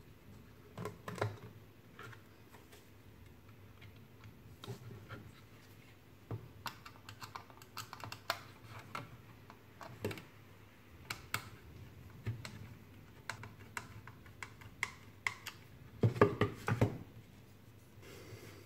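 Scattered small clicks, taps and knocks from hands handling a 3D-printed plastic case, its wires and small screws on a tabletop, with a busier run of louder knocks near the end.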